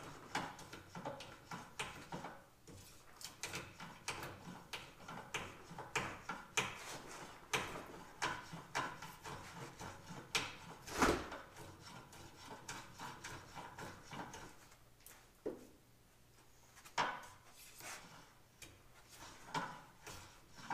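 Repeated, irregular scraping strokes of a hand tool working a piece of wood clamped in a bench vise, with one louder stroke near the middle.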